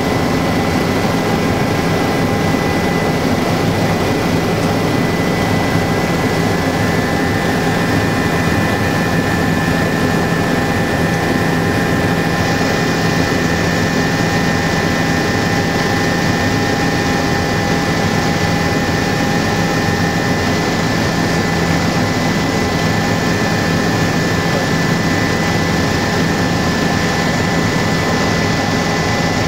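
Helicopter in flight heard from inside the cabin: a steady, loud drone of engine and rotor with a constant high whine running through it.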